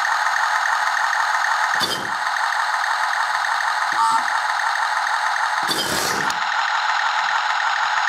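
Miniature 1/72 remote-control Tiger tank running its engine sound effect through a tiny speaker, steady and thin with no low rumble, mixed with the whir of its small drive motors and plastic tracks. Three short thumps come about two, four and six seconds in.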